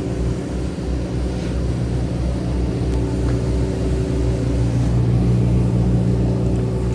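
An engine idling steadily, with a low, evenly pulsing throb under a constant hum.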